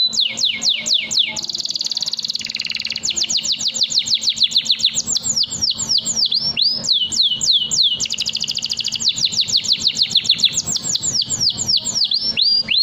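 Domestic canary singing a long, unbroken song: rapid runs of high downward-sweeping notes, broken by two fast buzzy trills, one near the start and one in the middle.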